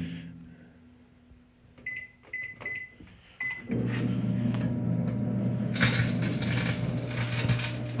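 Panasonic microwave oven: four keypad beeps, then the oven starts running with a steady low hum and fan noise. About two seconds later a loud crackling hiss joins in: aluminium cans sparking inside.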